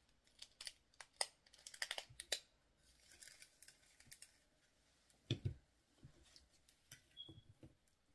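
Faint hand-handling noises of crafting: light clicks, ticks and rustles as stretch beading cord is pulled off its plastic spool, with one soft knock about five seconds in.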